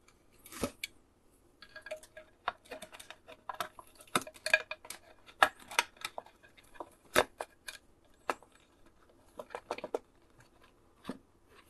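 Irregular small clicks, taps and rustles of hands fitting a taped transformer and a wired circuit board into a plastic power-supply case, with the sharpest knocks about half a second in and a little past seven seconds.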